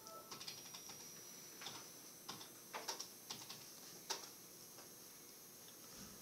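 Typing on a computer keyboard: a run of irregular key clicks that thins out about four seconds in.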